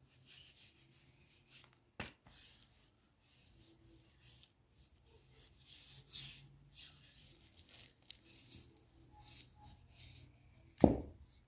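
Scraping and rustling of hands on a stone hand quern's upper millstone and the flour-dusted plastic sheet beneath it, with a sharp click about two seconds in and a heavy thud near the end.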